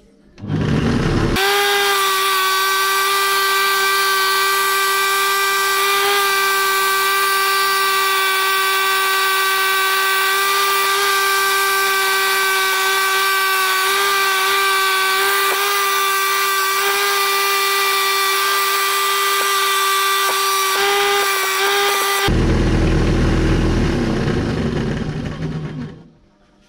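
Electric drill driving a reciprocating-saw adapter under a table, its blade sawing through a steel rod: a loud steady motor whine. Near the end the whine gives way to a lower, rougher rumble for a few seconds, then the sound dies away.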